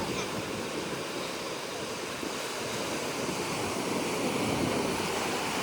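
Sea waves washing onto the shore, a steady rushing surf that swells slightly near the end.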